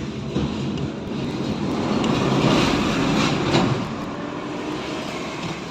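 A motor vehicle engine running, its sound swelling to a peak about two to three and a half seconds in and then easing to a steady level.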